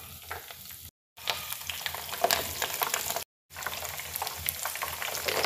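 Batter-coated coriander pakoras deep-frying in hot oil in a pan: steady sizzling with many small crackling pops, breaking off for a moment twice.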